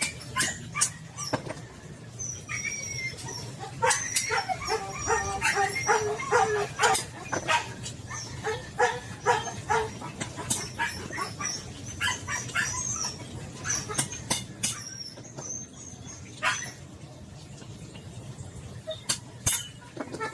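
A dog whining and yipping in short, high cries, mostly in the first half, over scattered sharp clicks and knocks.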